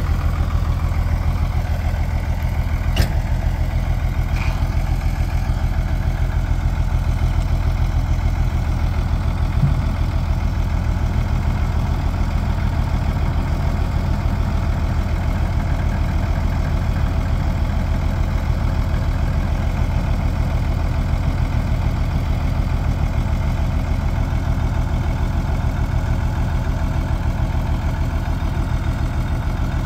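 Ford truck engine idling steadily while it drives the hydraulic hoist that raises the dump box, with a light click about three seconds in.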